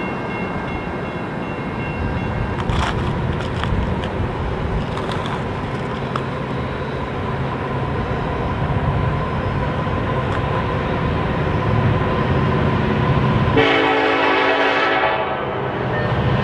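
Steady rumble of an approaching freight train's diesel locomotive. Its air horn sounds one chord for about a second and a half near the end.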